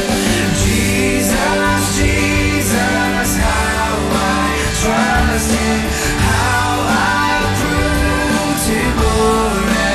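A worship song being sung over guitar and bass accompaniment: the closing song of a church service.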